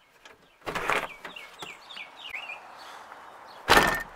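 Jeep Wrangler TJ door unlatched and pushed open with a clunk about a second in, then shut with a loud slam near the end. A bird chirps a few times in between.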